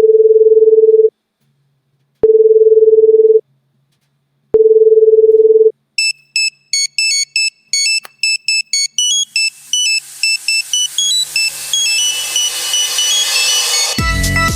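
A telephone call-progress tone beeps three times, each about a second long with equal gaps. It is followed by a fast, high-pitched beeping melody like an old mobile phone's ringtone, which builds into electronic music that becomes fuller and louder, with bass, near the end.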